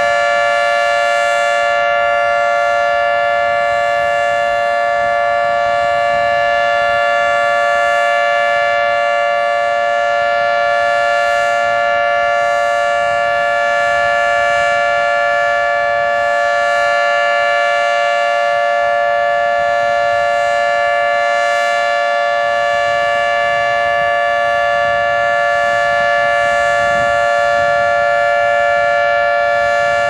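Federal Signal 2T22 dual-tone mechanical outdoor warning siren sounding its steady alert signal, a loud, unwavering two-tone chord held at full speed.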